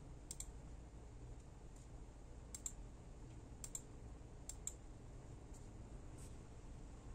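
Computer mouse buttons clicking, mostly in quick double clicks about five times, over a low steady background hum.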